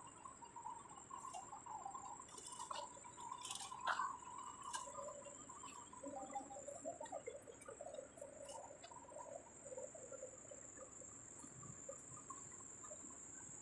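Faint outdoor ambience: a steady high insect-like drone with scattered faint chirps, and a few sharp clicks a few seconds in.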